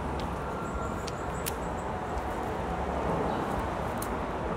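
Steady outdoor background rumble with a few short sharp clicks and crackles as a knife cuts through the string and banana-leaf wrapping of a sticky rice cake.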